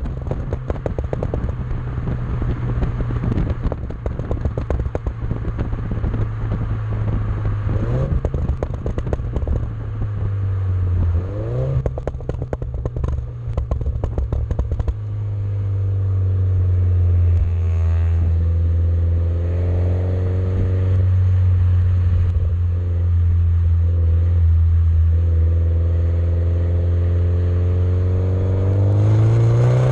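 MINI John Cooper Works (F56) with a Maxi-Tuner Hexagon valved exhaust: the engine runs with a steady low drone and dense exhaust crackling through the first half, with two short rev blips. Then it settles into a louder, steadier low drone, and the revs climb again right at the end.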